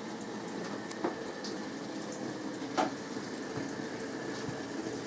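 Kitchen tap running a thin steady stream of water into the sink. Two knocks cut through it, a faint one about a second in and a louder one near the middle.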